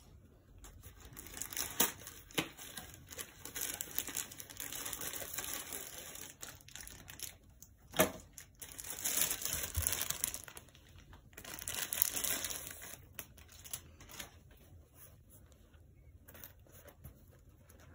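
Paper and plastic packaging crinkling and rustling as a box is opened and the contents unwrapped, with a few sharp clicks and knocks. Two longer bursts of crinkling come around the middle, then it settles into faint handling.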